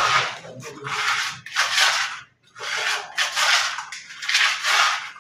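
Masonry trowel scraping and smoothing wet cement plaster along the edge of a door jamb, in about five long scraping strokes with short pauses between them.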